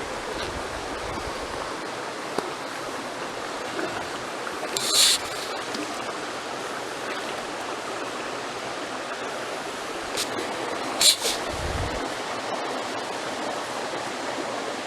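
Brook water running steadily over rocks, with a few short sharp knocks about five seconds in and again around ten to eleven seconds.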